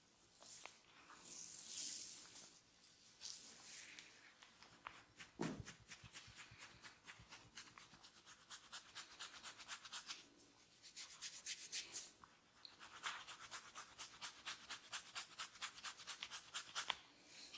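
Massage strokes by hand over skin and hair, rubbing and scratching in quick, rhythmic strokes of several a second, with a rubbing swish at the start and brief pauses partway through.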